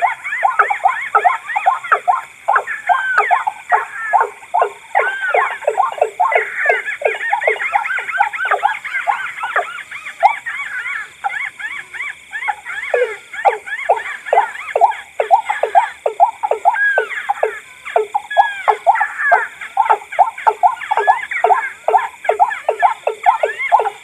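Combined bird-call lure recording of white-breasted waterhen, watercock and crake calls layered together: a loud, unbroken run of short repeated calling notes, several a second and overlapping.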